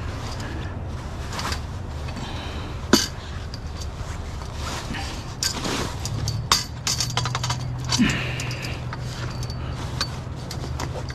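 Scrap being handled and worked loose: scattered clinks, knocks and rattles, a sharp knock about three seconds in and a quick run of them past the middle, over a steady low hum.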